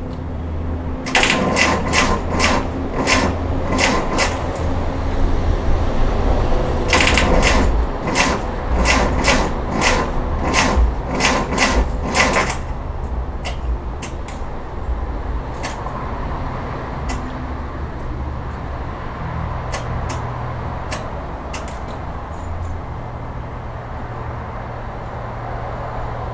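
Rapid repeated clicking from a car that won't start, in two runs of about three clicks a second, over a steady low hum.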